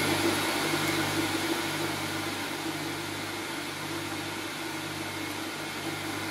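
Steady whirring noise like a fan or small motor, loudest at the start and easing off slightly, over a low electrical hum.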